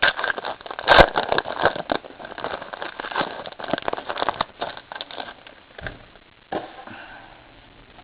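A trading-card pack's wrapper being torn open and crinkled, with a sharp snap about a second in, then the cards being handled, with a couple of light knocks near the end.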